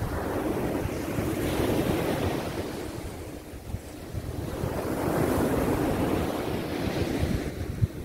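Sea waves breaking and washing up a sandy beach, two surges of surf that swell and fade, with wind buffeting the microphone underneath.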